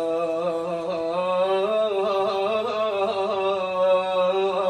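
A man singing a mawwal: one long, unbroken sung line with wavering melismatic ornaments, over a steady low drone.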